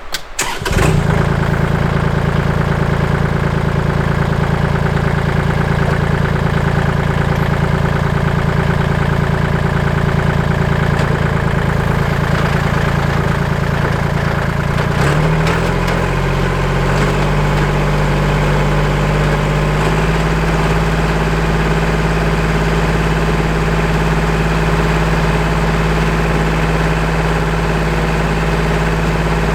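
Kubota L2501 compact tractor's diesel engine running steadily. It comes in abruptly just under a second in, and its note changes about halfway through, then holds steady again.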